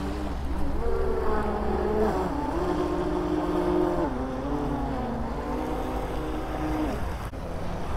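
Twin 750KV electric motors of a 2.35 m (94-inch) MHZ RC speedboat running at speed, the pitch of their drone stepping up and down with the throttle and dropping away near the end; likened to a Mustang 5.0 V8. Wind rumbles on the microphone underneath.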